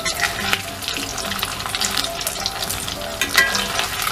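Potato-and-semolina finger snacks deep-frying in hot sunflower oil on high flame: a steady sizzle full of fine crackles, with a louder scrape of the spatula against the metal pan about three and a half seconds in.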